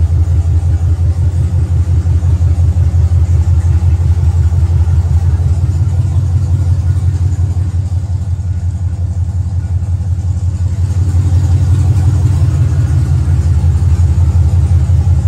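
Camaro SS's 6.2-litre LT1 V8 idling steadily through freshly fitted 1 7/8-inch long-tube headers, with a deep, even pulse. It dips slightly in the middle.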